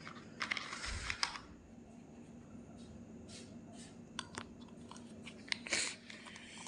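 Handling noise from an earbud charging case and its USB charging cable being picked up and moved about: short rustles in the first second or so, then a scatter of small clicks and taps. A faint steady hum lies underneath.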